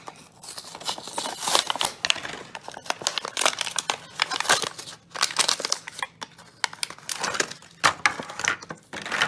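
A Hot Wheels die-cast car's blister pack being opened by hand: the plastic blister crinkles and the cardboard backing card tears, in irregular spells throughout.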